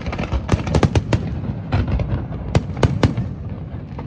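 Fireworks display: about eight sharp bangs from bursting shells in quick, uneven succession, some close together, over continuous crackling between them.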